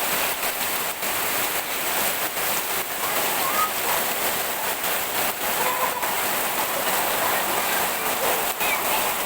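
Heavy rain falling steadily, a constant hiss of rain on surfaces.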